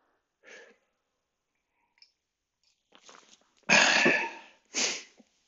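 A man coughs twice: a harsh, longer cough about four seconds in and a short one right after.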